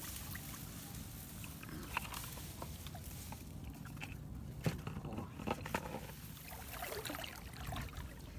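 Tall grass rustling as it is pushed aside, with scattered sharp clicks and knocks from metal tongs, the strongest a little past halfway, over a low steady rumble.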